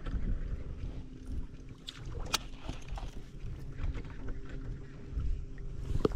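Low rumble of a small boat moving on the water, with a faint steady hum under it. Two sharp clicks, one about two seconds in and one near the end.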